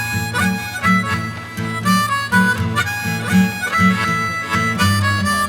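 Background music: a harmonica playing a melody over a steady low beat, about two pulses a second.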